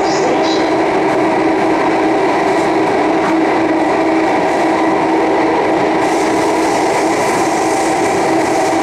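SMRT C830 metro train running between stations, heard from inside the carriage: steady running noise with a constant hum. A higher hiss joins about six seconds in.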